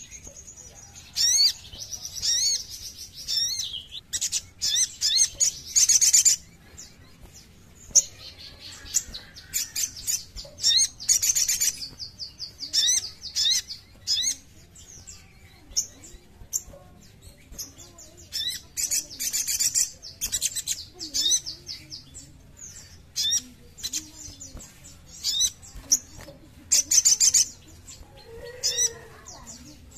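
Sogon (sogok ontong) sunbird singing: bursts of rapid, high-pitched chirps and fast sweeping trills, each up to about a second long, repeated with short pauses between them.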